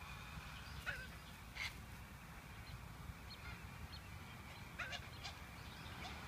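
A white cockatoo giving short harsh squawks, a few scattered calls that fall in pitch about a second in and again near five seconds, with small chirps between them. A faint steady high drone runs underneath.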